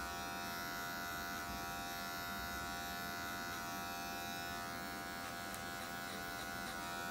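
Electric hair clipper with a number 2 guard running steadily, a constant buzz, as it is worked through short hair to blend a low fade.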